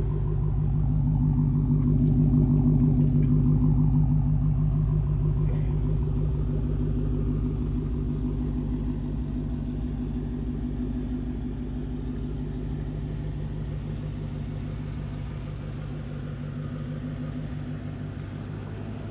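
Dodge Challenger Hellcat's supercharged 6.2-litre Hemi V8 idling with a steady low rumble, growing louder over the first few seconds and then slowly fading.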